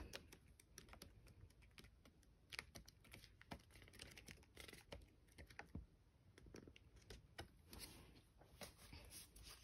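Sheets of a paper sticker book being flipped through one after another: faint paper flicks and rustles in a quick, irregular series of soft clicks.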